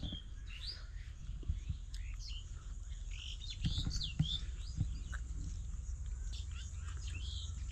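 Birds chirping, short quick calls scattered throughout, over a steady low rumble.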